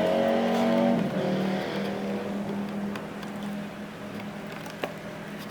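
A steady, pitched mechanical hum, like a running engine or motor, that fades away over the first few seconds, with a few faint clicks.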